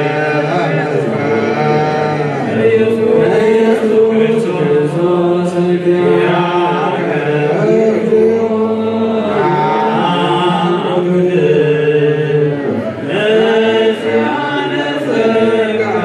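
Ethiopian Orthodox liturgical chant in Ge'ez, sung by men's voices in long, drawn-out notes that slide between pitches, with short breaks between phrases. It is the thanksgiving chanted after communion.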